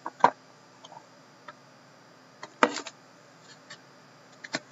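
Hands handling and prying open a trading card box: a few sharp clicks and knocks, the loudest about two and a half seconds in, with fainter ticks between.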